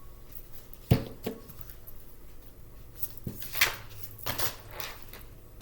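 Tarot cards being handled: a sharp tap on the table about a second in, then a few softer taps and rustling swishes of cards being shuffled or drawn.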